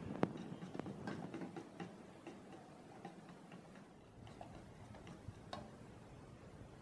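Fork beating eggs in a small metal saucepan, its tines clicking lightly and quickly against the pot's sides. The clicks come thick for the first couple of seconds, then thin out to scattered taps.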